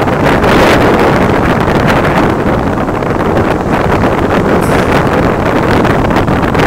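Wind rushing over the microphone of a camera carried on a moving bicycle: a loud, steady rush.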